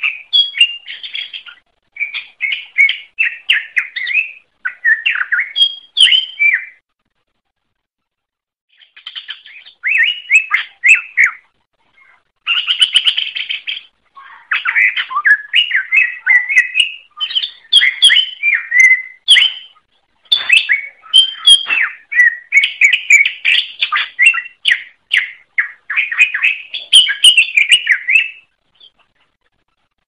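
Green leafbird (cucak ijo) singing vigorously in long phrases of rapid, chattering and whistled notes. It breaks off briefly about 7 and 12 seconds in and stops shortly before the end.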